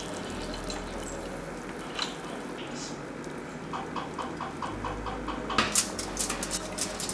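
Kitchen cooking sounds: a pot of water bubbling at a steady boil, with a single click about two seconds in and a run of quick, light, evenly spaced ticks a little past the middle. Near the end come several sharp clicks and taps as food is set down on a foil-lined baking tray.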